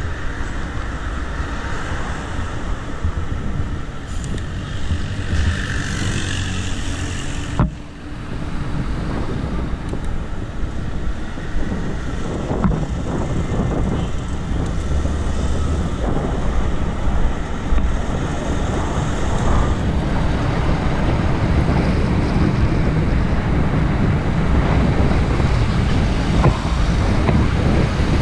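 Wind rushing over the microphone of a camera riding along on a moving bicycle, with road traffic noise around it. The noise drops out briefly about eight seconds in.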